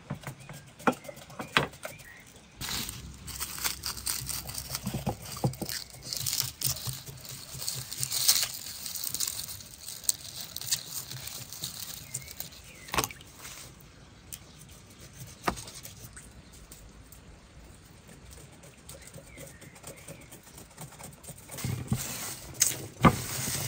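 Garlic being peeled by hand on a wooden cutting board: the dry papery skins rustle and crackle, with a few sharp knife taps on the board. The rustling is densest in the first third, and the taps come singly, twice near the start, twice in the middle and again near the end.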